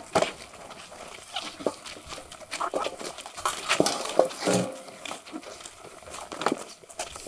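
Short animal cries, one pitched cry about four and a half seconds in, among knocks and rustling as sacks are handled and loaded into a wheelbarrow.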